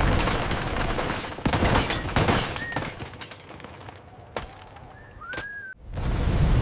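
Storm sound effects: a loud rushing tornado wind with several sharp cracks of breaking debris and a couple of short rising-and-falling creaks. The wind drops away in the middle, then surges back loud near the end.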